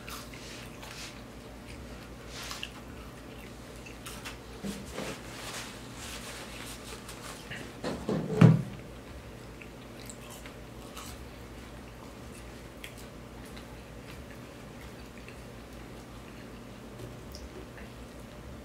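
Close-up eating sounds: biting and chewing chicken wings, with small wet mouth noises and clicks. A brief louder sound comes about eight and a half seconds in.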